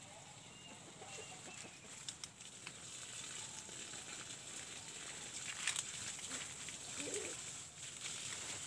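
Chickens clucking faintly, a few short calls over a steady high hiss, with a few brief rustles.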